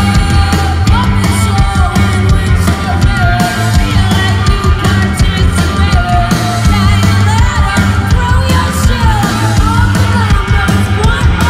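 Live punk rock band playing at full volume: a woman sings into a microphone over electric guitar, bass guitar and drums, heard from the crowd.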